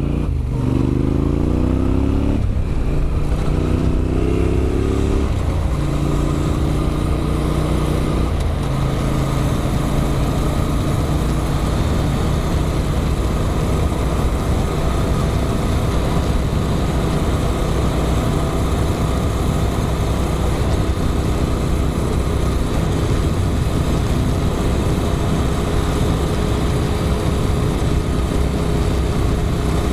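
Adventure motorcycle with an Arrow aftermarket exhaust pulling away: the engine note rises through three gears over the first eight seconds or so, dropping back at each shift. It then runs at a steady cruise.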